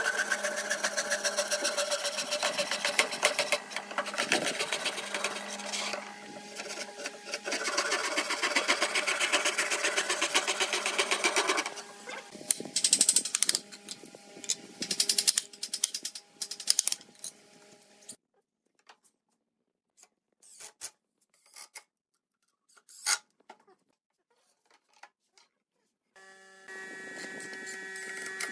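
A Japanese pull saw cutting through a wooden board in fast, even strokes for about twelve seconds, then a few seconds of irregular scraping and knocks. After a quiet stretch, a cordless drill's motor starts to hum near the end.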